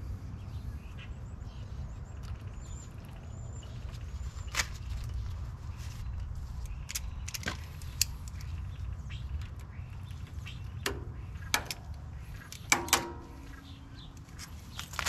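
Scattered metallic clinks and knocks from hand tools working on a tiller's chain drive, over a steady low rumble. The two loudest knocks come close together near the end, the second ringing briefly.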